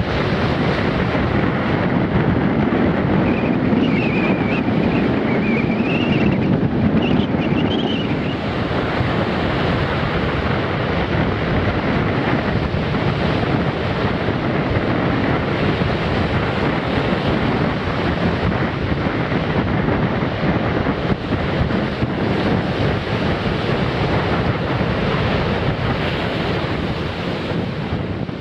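North Sea surf breaking on a sand beach in a strong west-northwest wind, with wind buffeting the microphone. It runs as a steady, loud wash with no letup.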